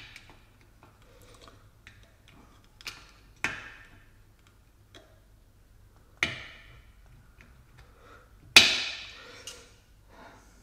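Thin steel pry tool clicking against a snap ring in the alloy rear bore of a ZF 6HP26 gearbox housing: a few sharp metallic clicks, each ringing briefly. The loudest comes about two-thirds of the way through.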